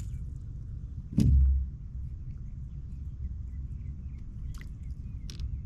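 A single sharp thud about a second in, over a steady low rumble, with two faint clicks near the end.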